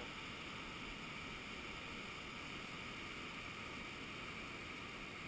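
Steady rushing of a whitewater river rapid.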